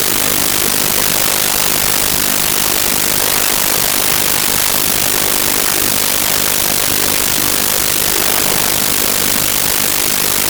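Loud, steady hiss of static noise, brightest in the high pitches, from a faulty audio recording that drowns out the game.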